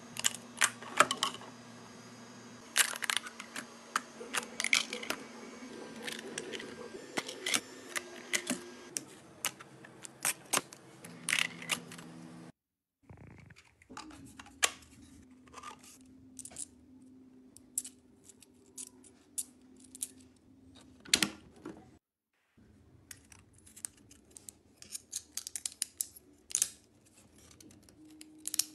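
Hard 3D-printed plastic parts clicking, tapping and knocking as they are handled and fitted together, irregular sharp clicks over a faint low steady hum. The sound cuts out briefly twice.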